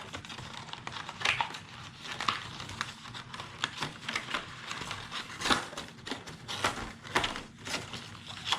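Die-cut paper and cardstock being handled, rustling and crinkling, with many small sharp clicks and crackles as pieces are shifted and popped loose.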